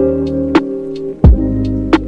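Background music: sustained chords over a steady beat with deep low thumps.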